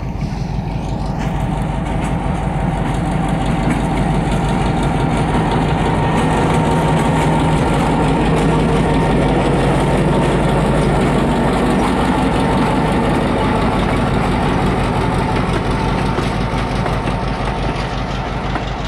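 Diesel switcher locomotive's engine running steadily as it passes close by, with the wheels of the passenger coaches rolling on the rails. The sound builds to its loudest around the middle and eases a little near the end.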